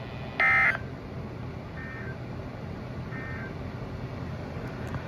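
NOAA Weather Radio SAME end-of-message data bursts: three short warbling digital tone bursts about a second apart, marking the end of the alert. The first is loud and distorted and the next two are faint, over a steady low radio hiss.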